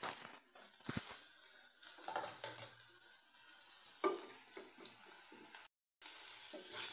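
Chopped onion frying in oil in a stainless steel kadai, with a steady sizzle while a wooden spatula stirs, scraping and knocking against the pan; one sharp knock comes about a second in. The sound cuts out for a moment near the end.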